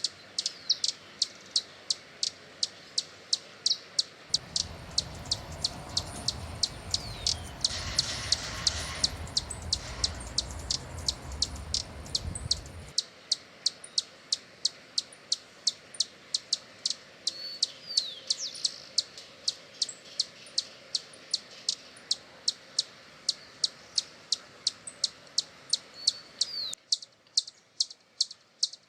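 Hummingbird giving a rapid, steady series of short, high-pitched chip calls, several a second, with a few gliding squeaky notes among them. A low rumble runs under the calls from about four to thirteen seconds in.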